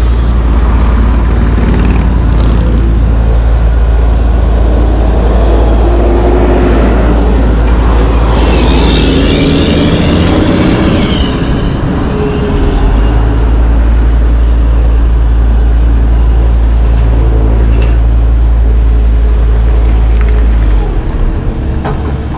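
Steady low engine rumble and road traffic noise, with a vehicle passing close about nine to twelve seconds in.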